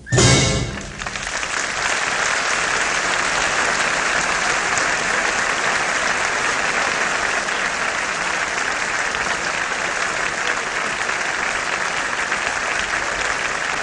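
Theatre audience applauding steadily, after a short loud final burst of the orchestral music right at the start.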